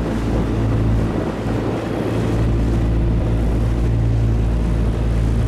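Boat engine running steadily under way: a constant low hum with an even rushing noise over it.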